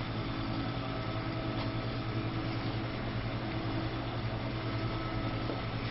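Steady mechanical hum with a few constant tones over a low hiss, unchanging throughout: background running equipment.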